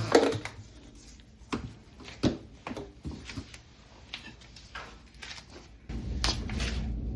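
A scattered series of short knocks and clicks, like things being handled and bumped. About six seconds in, a steady low hum of background noise sets in.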